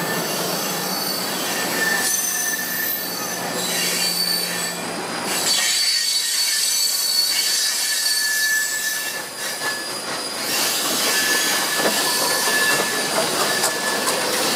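Passenger coaches rolling past at close range, a steady rumble of wheels on rail with thin high squeals from the wheels that come and go.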